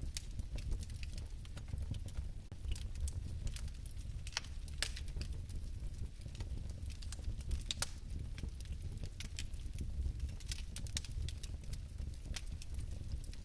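Fireplace fire crackling: irregular sharp pops and snaps, several a second and some louder than others, over a steady low rumble of the flames.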